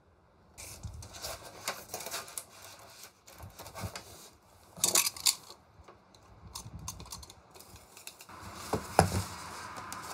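A utility knife and tape measure being worked on a sheet of XPS foam board: irregular clicks and scrapes, busiest about five seconds in, turning to a steadier scratching near the end.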